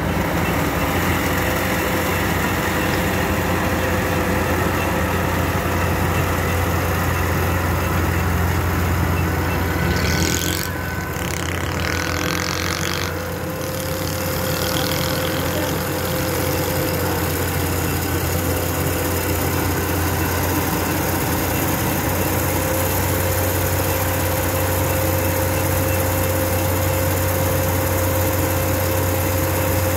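Tracked combine harvester running steadily while cutting a rice crop: its engine and threshing machinery give a continuous drone with a steady low hum. About ten seconds in the sound briefly changes and dips for a few seconds, then settles back.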